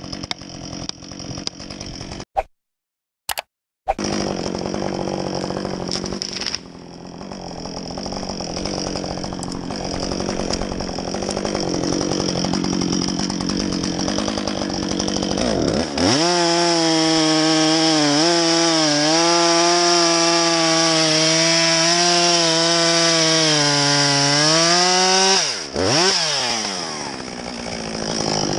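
A few sharp knocks of an axe driving a felling wedge, then a short break in the sound. A two-stroke chainsaw then runs at low revs and, about halfway through, is opened to full throttle for roughly nine seconds, its pitch dipping briefly a few times, before falling back to a low, steady run.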